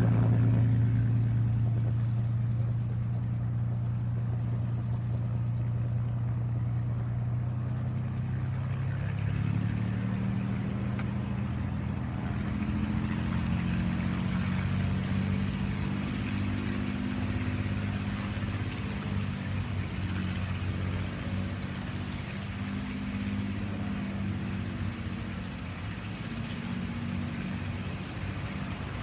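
Piston aircraft engine running at low power: a steady low drone that eases off over the first few seconds, then settles to a slightly different pitch about ten seconds in.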